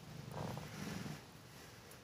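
A cat's low rumbling sound that swells about half a second in and stops after about a second.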